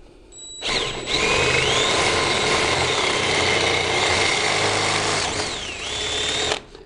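DeWalt cordless drill boring a 10 mm hole with a high-speed steel bit through a thin galvanised steel trunking lid into a wooden backing block. The motor whines for about six seconds from about half a second in, its pitch shifting as the bit cuts and dipping briefly near the end, then cuts off suddenly.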